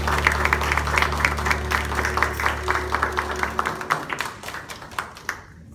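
Audience applauding while the last held chord of the music rings out. The chord stops about four seconds in, and the clapping thins out and dies away near the end.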